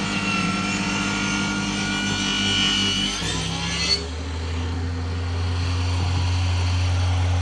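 Electric power saw cutting plywood, a steady motor whine with rasping noise; about four seconds in the sound changes abruptly to a steadier, lower hum.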